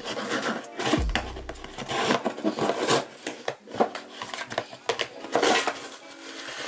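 A cardboard package being pried and torn open by hand: continuous rustling, scraping and tearing, broken by many sharp clicks and taps.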